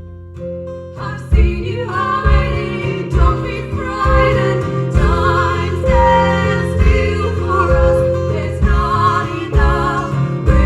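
Live band music: guitars with a steady beat, growing fuller about a second in, with a wavering melody line above.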